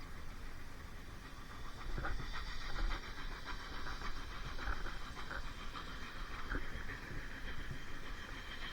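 Steam locomotive working, with a steady hiss and a run of irregular sharp exhaust beats over a low rumble.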